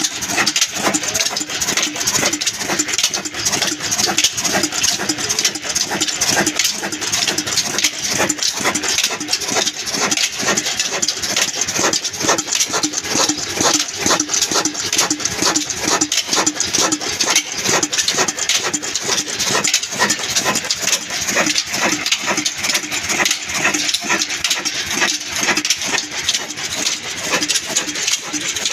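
Old black stationary diesel engine running steadily, its exhaust beating in a fast, even knock.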